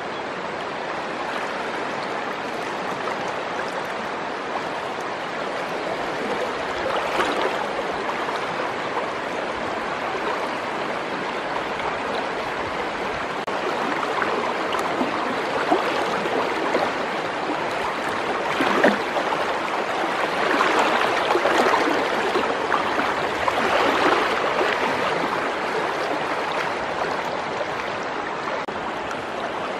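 Fast-flowing, muddy river water rushing steadily, with scattered splashes from a person wading through it, most frequent in the second half.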